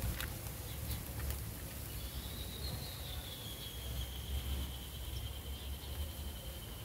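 Outdoor ambience with a thin, high insect call. It starts about two seconds in, holds steady and sinks slightly in pitch, over a low rumble.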